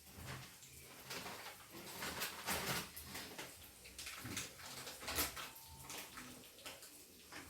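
Egg omelette frying in a pan: a soft sizzle with irregular crackles that come and go.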